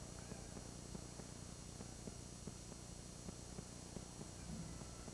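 Steady low hum and hiss of an old camcorder recording, with light clicks from handling as the camera moves.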